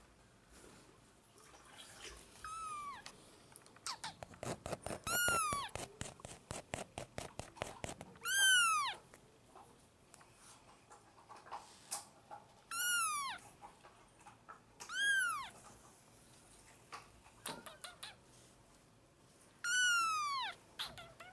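A very young kitten meowing, six high calls spread apart, each falling in pitch as it ends. Between the second and third call there is a quick run of clicks.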